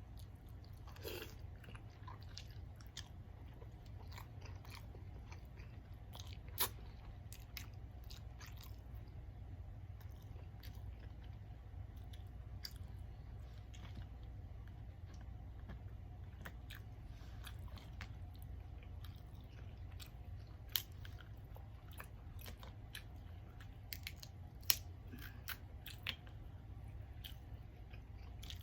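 Close-miked chewing and biting of seafood-boil food: steady wet mouth sounds and small crunches, with a few sharper clicks standing out, the loudest about two-thirds of the way through.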